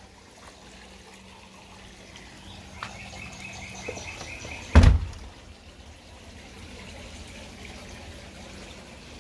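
Backyard ambience with a steady hiss like running water. A rapid run of high chirps comes about three seconds in, then a single loud thump about five seconds in.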